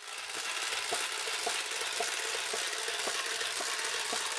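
Motorized crawling toy hand running: its small motor and plastic gears whir with a steady rattle, and a light click comes about twice a second as the fingers step.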